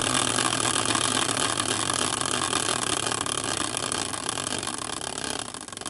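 Hand-spun caster wheel, used as a prize wheel with team logos wrapped around its tire, spinning on its axle: a fast clicking whir that slowly fades, then slows into separate ticks near the end as the wheel comes to a stop.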